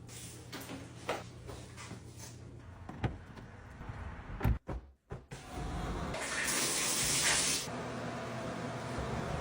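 Water running from a tap into a sink, a steady rush that grows louder in the middle. A few knocks and clatters come before it.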